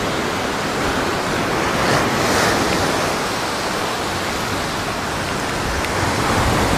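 Surf washing onto a sandy beach, a steady rush of waves that swells about two seconds in and again near the end, with wind rumbling on the microphone.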